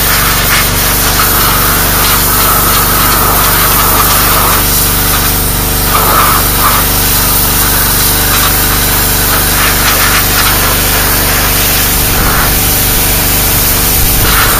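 Pressure washer running, its high-pressure jet spraying steadily against rusted steel pickup-bed parts and blasting loose rust and gunk, with the machine's steady hum underneath.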